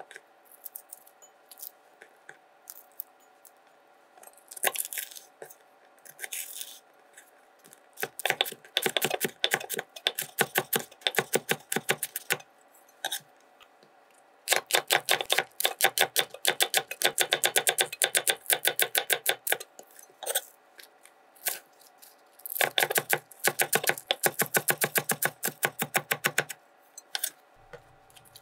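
Chef's knife cutting vegetables on a cutting board: a few scattered cuts at first, then three long runs of quick, even chops as green onion is sliced thin.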